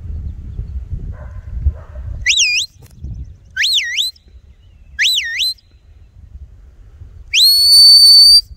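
Shepherd's whistle commands to a working sheepdog: three short whistles that each dip and rise again, then one long whistle that rises and holds, the loudest. Wind rumbles on the microphone in the first two seconds.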